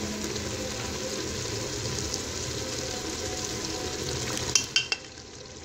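Beef and onion-tomato masala sizzling in hot cooking oil in a pressure-cooker pot as the oil is spooned in and stirred with a wooden spatula. A few sharp knocks come near the end, then the sizzle turns quieter.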